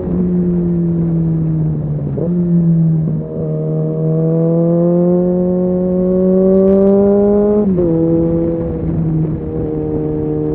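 Suzuki Bandit 650's inline-four engine pulling under way, heard from on board. Its note changes about two seconds in, climbs slowly, then drops sharply near eight seconds in as it shifts up a gear.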